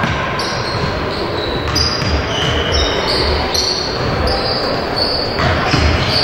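Basketball play on a hardwood gym floor: sneakers squeaking in short high chirps several times, with low thuds of the ball and feet on the court and voices in the hall.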